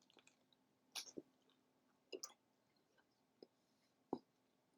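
Faint chewing and mouth sounds from someone eating a bacon cheeseburger: about five short, spaced-out wet clicks and smacks.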